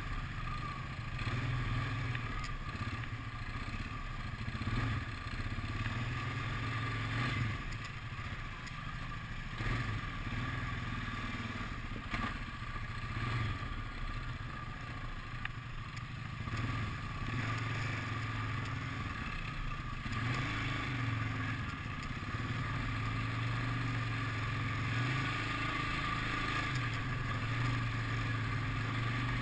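ATV engine running as the quad is ridden along a rough, muddy dirt trail, its note rising and easing a little with the throttle, with scattered knocks and rattles from the machine jolting over the ground.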